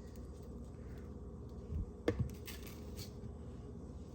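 Quiet handling of kitchenware while oats are added to a mixing bowl: a dull thump about two seconds in, then two light clicks, over a faint steady hum.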